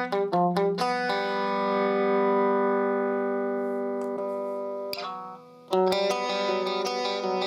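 Electric guitar played through a guitar amplifier: a few quick picked notes, then a chord left ringing and slowly fading for about four seconds. The chord is cut off, and a new pattern of picked notes starts near the end.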